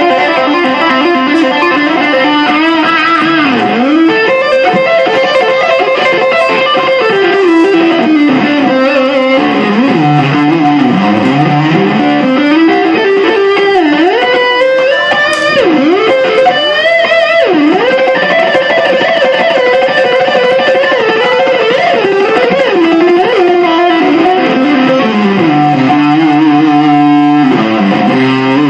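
Electric guitar playing a continuous melodic lead line, with frequent note bends and slides between sustained notes.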